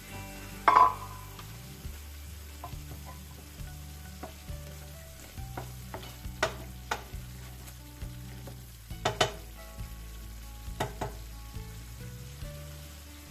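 Wooden spoon stirring tomato sauce in a non-stick frying pan, scraping and knocking against the pan while the sauce sizzles. The loudest knock comes about a second in, with further clusters of knocks in the middle and near the end.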